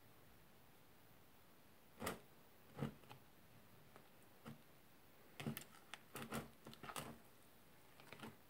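Fingers poking and kneading old purple slime that is soaked in hot water, shaving cream and liquid soap, giving short wet squelches. They are spaced out at first, starting about two seconds in, then come as a quick cluster past the middle, with one more near the end.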